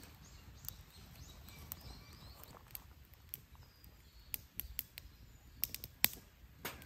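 Split firewood burning in an open fire pit, crackling with scattered sharp pops, the loudest about six seconds in. Birds chirp faintly behind it.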